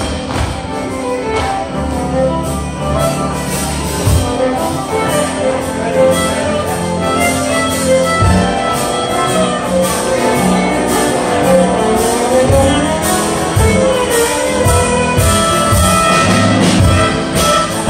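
Live contra dance music: fiddle, keyboard and percussion playing a tune over a steady beat.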